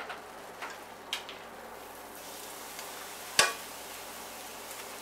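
Crumbed lamb chops sizzling in hot olive oil in an electric frying pan as they are laid in. The sizzle grows louder about two seconds in, and there is a sharp knock against the pan about three and a half seconds in.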